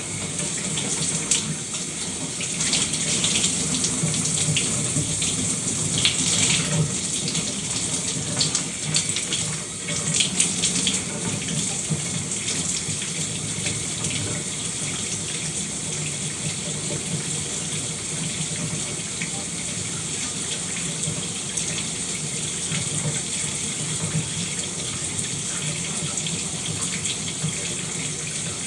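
Shower running: water spraying and splashing as a steady hiss, uneven and spattering for the first ten seconds or so, then even.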